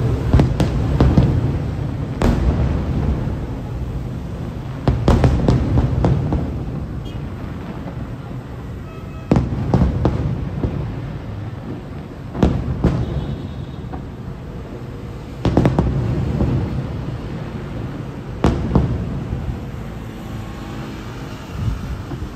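Aerial firework shells bursting: about a dozen loud booms in clusters every few seconds, each followed by a long rumbling echo.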